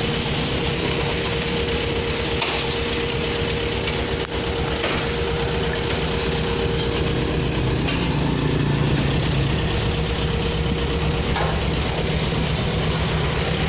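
Steady street traffic noise with a motorbike engine humming, its pitch dropping lower about eight seconds in.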